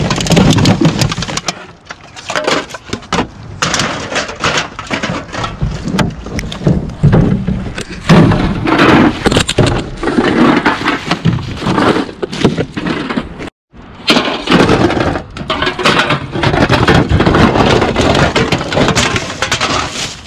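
Plastic bags crinkling and rustling while empty aluminium beverage cans clatter and crunch against each other in a plastic bin, in a dense run of irregular crackles and knocks. The sound cuts out completely for a moment about two-thirds of the way through.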